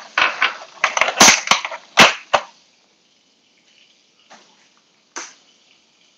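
A quick run of sharp clattering knocks as kitchen things are handled on the hob and counter, the loudest about one and two seconds in. Then a single sharp tap about five seconds in, an egg cracked against the rim of a small frying pan.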